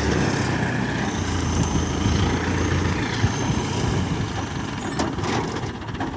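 Diesel engine of an ACE hydra pick-and-carry crane running steadily at idle, with a couple of short knocks about three and five seconds in.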